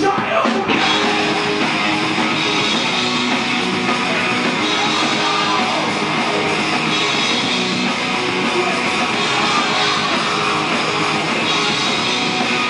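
Live rock band playing loud and steady: electric guitar, electric bass and a drum kit.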